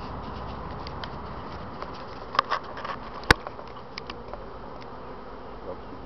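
A honeybee swarm buzzing steadily close by as the bees crawl down into a skep after their queen. A few brief taps, the loudest a single sharp click a little over three seconds in.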